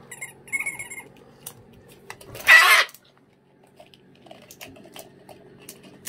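Cockatoo giving one loud, harsh screech about two seconds in, lasting under a second. Scattered light clicks and taps sound around it, with a short rattling patch near the start.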